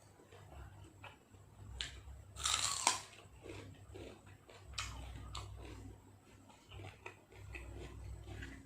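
A person eating spicy beef salad with raw vegetables close to the microphone: biting and chewing, with a loud crunch about two and a half seconds in and smaller crunches and mouth clicks through the rest.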